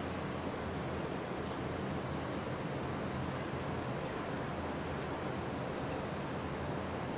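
Steady outdoor background noise, an even low rumble and hiss, with faint short high chirps of small birds scattered through it.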